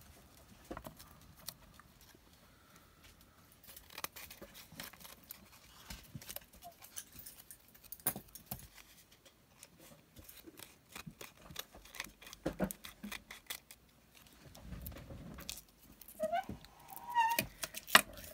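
Light clicks and rustles from cardstock and scrap paper being handled and sorted. About two seconds before the end a desk drawer squeaks with a wavering, high-pitched creak: its runners are dry and need lubricating.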